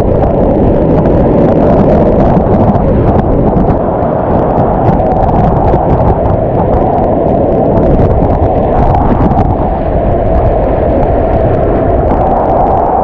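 Loud, steady rush of whitewater rapids around a kayak, with churning water and wind buffeting the microphone into a heavy low rumble.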